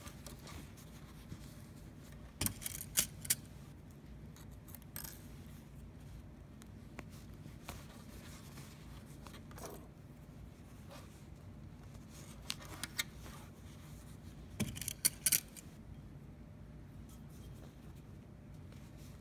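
Metal straight pins clinking and jangling as they are handled while pinning binding onto flannel. The clinks come in two short clusters, a couple of seconds in and again about three-quarters of the way through, over soft fabric handling and a low steady hum.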